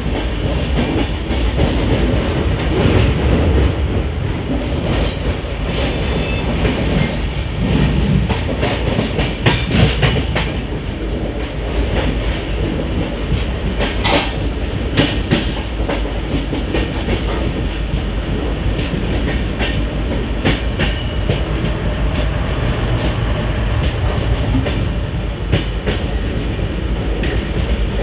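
Gujarat Sampark Kranti Express running at speed, heard from an open coach doorway: a steady rumble of wheels on rail, with clusters of sharp clacks from the track passing underneath about a third of the way and halfway through.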